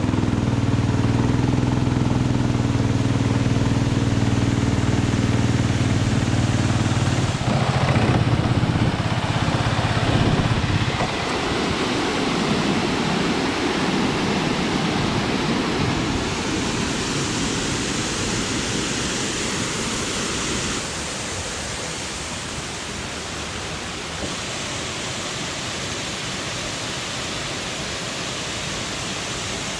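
A steady engine hum for the first ten seconds or so, then the continuous rushing of a fast river and waterfall, which changes abruptly a few times.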